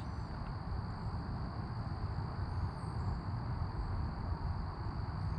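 Steady low rumbling background noise with a faint high steady tone above it, and no distinct event.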